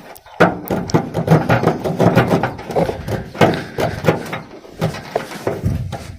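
Rapid, irregular clicking and scraping of a hand wire stripper working at the insulation of a thick 4-gauge battery cable, starting about half a second in.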